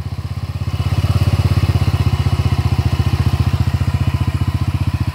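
The 200cc Tryker trike scooter's engine idling, a steady rapid pulsing from the exhaust that gets a little louder about a second in.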